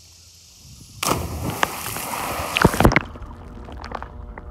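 A sudden loud splash into river water about a second in, a rush of noise for about two seconds with a few sharp cracks near its end, then duller churning water with scattered pops.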